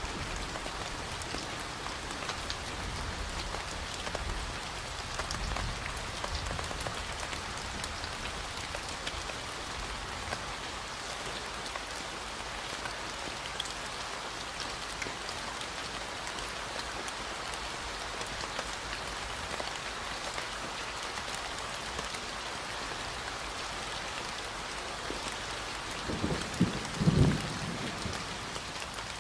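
Steady rain falling, with a low rumble of thunder dying away over the first several seconds and a short, louder low thump about three seconds before the end.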